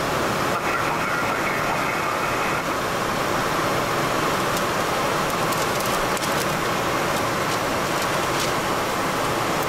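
Steady cockpit noise of a Boeing 737-300 in flight, from airflow and engines. Paper charts rustle faintly as they are flipped through in the second half.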